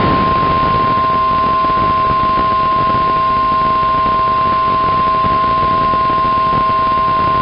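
Weatheradio Canada warning alarm tone: one loud, steady, unbroken 1050 Hz electronic tone, with a fainter lower tone beneath it. It is the alert signal that precedes a broadcast tornado warning.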